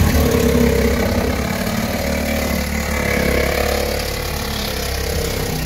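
An engine running steadily at an even pitch, coming in suddenly and loud.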